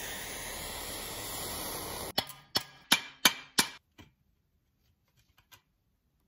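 Aerosol spray hissing steadily for about two seconds, then cutting off. Then five or six sharp metal knocks about a third of a second apart, as wrenches are worked on a rusted rod clamped in a bench vise.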